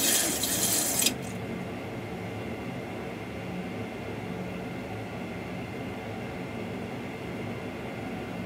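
Steady cockpit background noise of a Boeing 737NG full flight simulator: a low hum with a rushing air-like hiss. In the first second a louder burst of hiss ends in a sharp click.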